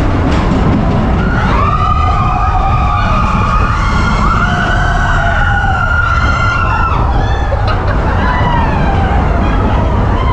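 Several roller coaster riders screaming in long, held cries that overlap at different pitches, over a steady low rumble of the coaster train on its track and wind buffeting the camera microphone.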